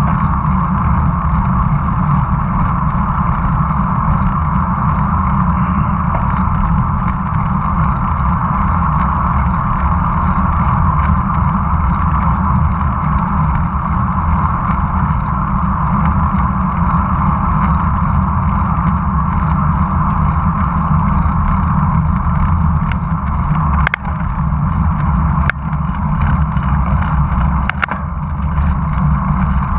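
Steady wind rush and tyre-on-asphalt noise on the microphone of a camera mounted on a moving road bicycle, with a few sharp clicks in the last few seconds.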